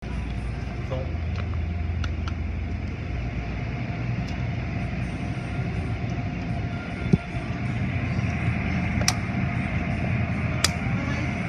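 Automatic car wash machinery running: a steady low rumble with a hiss of water and spinning cloth brushes, broken by a thump about seven seconds in and a couple of sharp clicks near the end.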